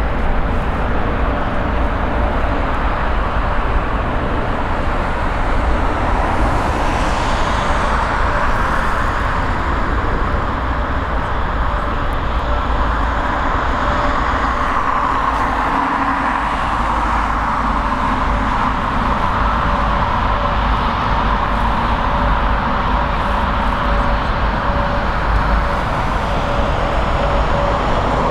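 Jet airliner engines running: a steady rumble with a faint whine that glides in pitch about six to nine seconds in.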